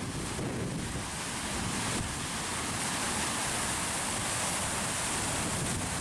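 Water rushing steadily out of a dam's arched outlet culvert and foaming down the irrigation channel below, with wind buffeting the microphone.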